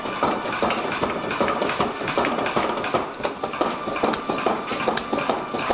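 A 500 lb Bradley power hammer striking hot steel in a fast, even run of blows while forging a large swage block.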